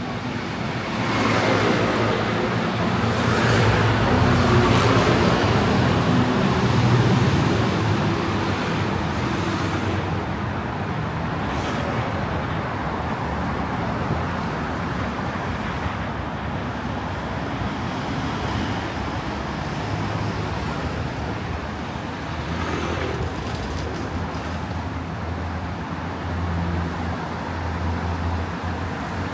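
City road traffic running steadily past, with engine hum under the tyre noise. A vehicle passes close by in the first several seconds, louder than the rest.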